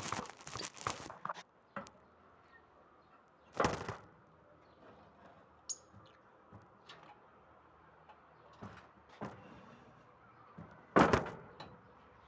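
Lovebirds moving about their cage: scattered knocks and clatters, the loudest about four seconds in and near the end, with one short high chirp about six seconds in.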